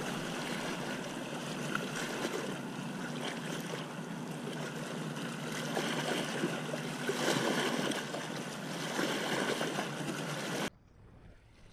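Steady outdoor rush of wind and water. It cuts off abruptly near the end and drops to a much fainter hiss.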